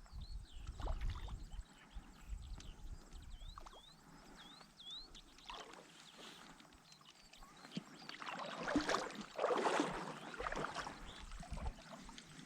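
River water splashing and sloshing, loudest from about eight seconds in to near the end, with a few short chirps about four seconds in.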